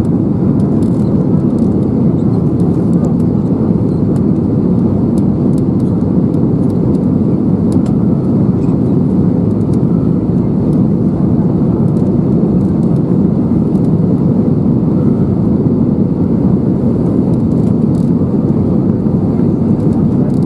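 Steady low cabin roar inside an Airbus A320neo on approach: engine and airflow noise heard from a window seat over the wing.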